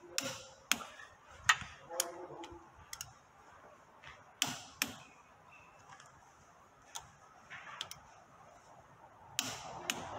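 Torque wrench and socket tightening the bolts on a CV axle's inner joint to 48 ft-lb: about a dozen sharp metallic clicks at irregular spacing, with rustling handling noise near the end.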